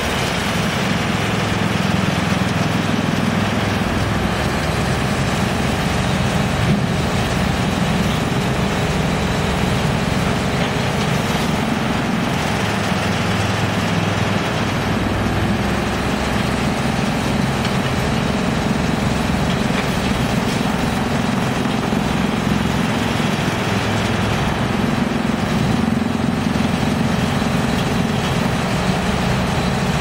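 Drum wood chipper and a tracked excavator running together: steady mechanical noise with a low engine note that shifts in level a few times.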